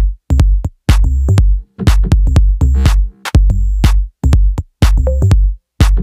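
Electronic dance music with a heavy drum-machine beat, chopped by short abrupt silences.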